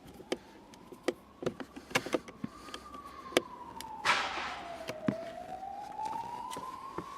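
A siren wailing in a slow rise and fall, over a series of sharp clicks and knocks in the first few seconds and a short hiss about four seconds in.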